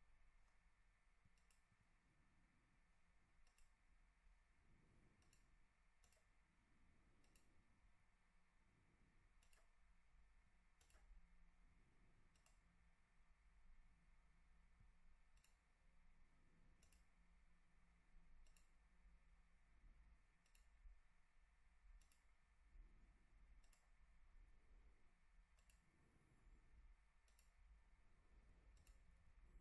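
Near silence with faint, short computer mouse clicks, spaced irregularly at roughly one a second.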